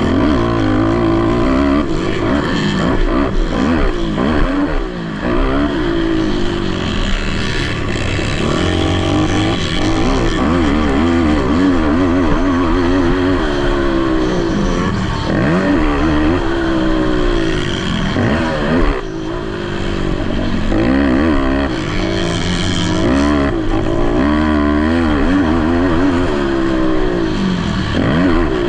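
Several racing ATV quad engines revving hard together, each pitch climbing and dropping again and again as the riders accelerate and back off around the motocross track.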